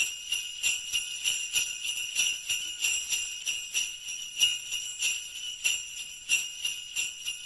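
Sleigh bells jingling, shaken in an even rhythm of about three shakes a second.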